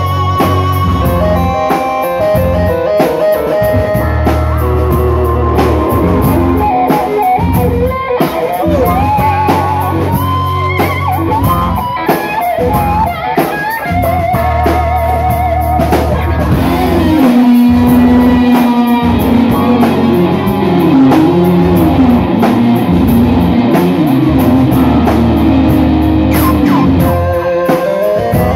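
A rock band playing live: drum kit and bass under a lead melody that bends and wavers, carried mainly by guitar. The melody sits higher in the first half and drops lower in the second half.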